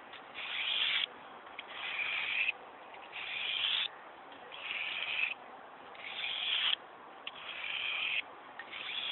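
Henckels kitchen knife blade drawn across a coarse sandstone whetstone in seven even strokes, about one a second, each a gritty scrape that builds and cuts off sharply. The coarse stone is taking off a lot of metal to reshape a chewed-up edge.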